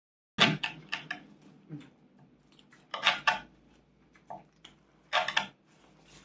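Kitchen utensils clattering against dishes in several short bursts of sharp clicks and knocks.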